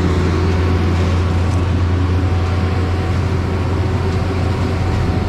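Heavy diesel engine of a concrete truck running steadily, a constant low drone with a faint steady hum above it.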